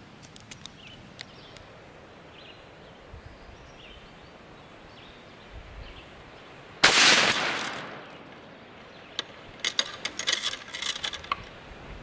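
A single .308 rifle shot striking a steel padlock: one sharp crack about seven seconds in, fading over about a second. The round shears off the shackle ear and the lock drops off its chain. A flurry of light clicks follows a couple of seconds later.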